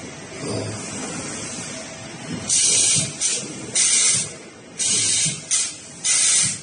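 Pneumatic resistance spot welding machine exhausting air in a series of sharp hisses: six bursts in quick succession starting about two and a half seconds in, over a steady low machine hum.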